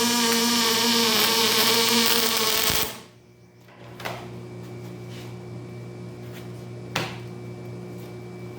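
A power tool running steadily with a fixed-pitch whine and hiss, which stops about three seconds in. A quieter steady hum follows, with two sharp knocks, the louder one near the end.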